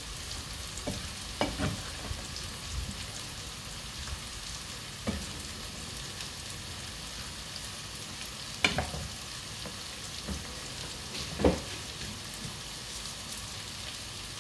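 Bitter gourd frying in oil in a pan, a steady sizzle, with a few scattered knocks of a utensil against the pan. The loudest knocks come about two thirds of the way in and again near the end.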